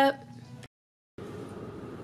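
Faint steady low rumble inside a car's cabin, coming in after about half a second of dead silence. Just before, a shouted word dies away into faint room tone.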